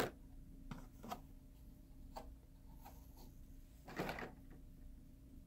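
Quiet room with a steady low hum and a few faint clicks and taps, like small objects being handled. A slightly louder brief rustle comes about four seconds in.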